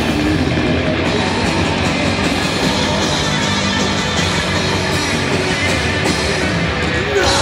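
A rock band playing live at full volume: electric guitars, bass guitar and a drum kit.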